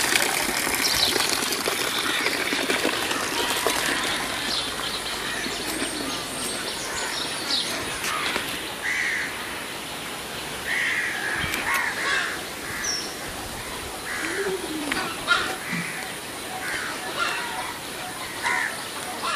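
Crows cawing: a run of short, repeated calls through the second half, over a steady outdoor hiss that is louder in the first few seconds.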